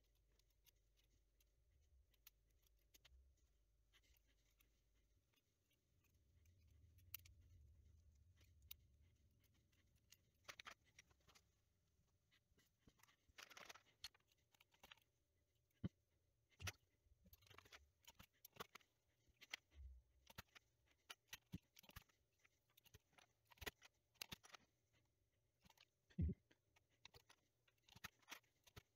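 Faint small clicks and taps of coil springs and plastic keycaps being handled and fitted onto a Commodore 64 keyboard's key plungers. The clicks are sparse at first and come more often in the second half, with one louder click near the end.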